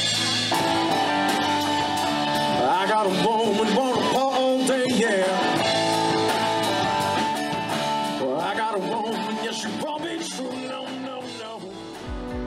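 Live rock band playing: electric guitar, bass and drum kit, fading out near the end.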